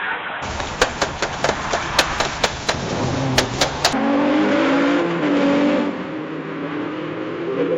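Car crash sound effect: a quick, irregular series of about a dozen sharp bangs and crunches over roughly three seconds, then a steady rushing noise with a low wavering tone underneath.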